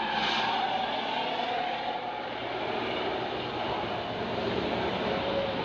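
Medium tour bus's diesel engine running steadily under load as it passes, pulling uphill.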